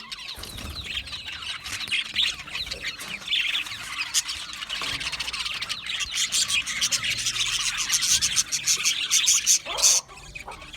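A flock of budgerigars chirping and chattering, many overlapping quick chirps, whistles and squawks. The sound briefly thins out near the end.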